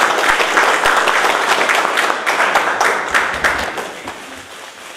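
Applause: a roomful of people clapping, dying away over the last second or so.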